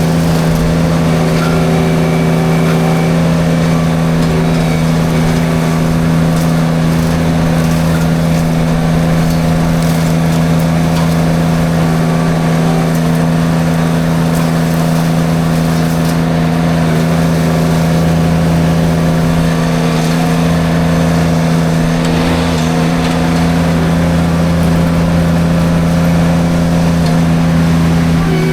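Derette V1000 mini skid steer's engine running at a steady pitch, driving its forestry mulcher drum.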